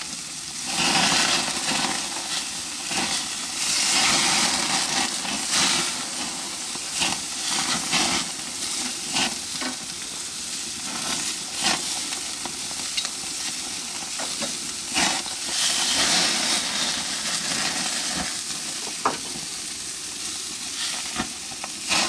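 Pork chops and peppers sizzling on a gas grill, a steady hiss broken by frequent sharp spits and crackles, with louder swells now and then as dripping fat flares up into flame.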